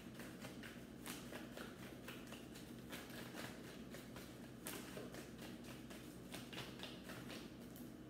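Faint, irregular soft flicks and taps of a tarot deck being shuffled by hand, cards slipping over one another.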